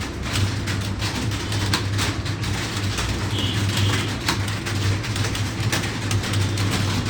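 Computer keyboards clattering with quick, irregular key clicks as several people type at speed, over a steady low hum.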